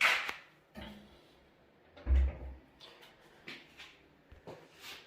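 Handling knocks and clunks during tile work: a sharp knock at the start, another just under a second in, a heavy low thump about two seconds in, then a few lighter clicks.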